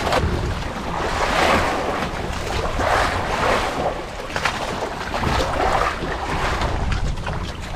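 Waves splashing against a small boat in uneven surges every second or two, with wind rumbling on the microphone.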